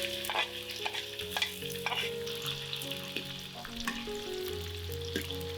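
Food sizzling in hot oil in a pan, with a spatula stirring and scraping against the pan in a series of sharp clicks.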